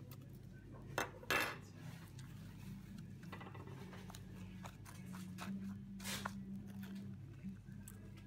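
A few knocks and clinks of small household objects being handled, the loudest a pair about a second in and another near six seconds, over a steady low hum.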